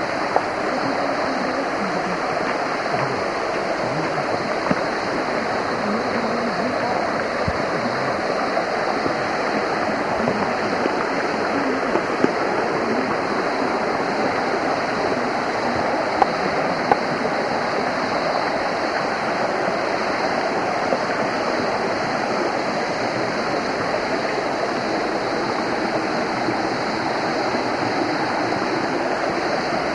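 Small rocky mountain stream rushing steadily over stones, with a few brief knocks.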